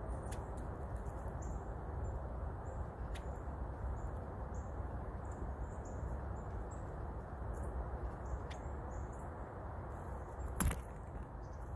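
Outdoor ambience: a steady low rumble with scattered faint, thin, high-pitched bird chirps, and one sharp knock near the end.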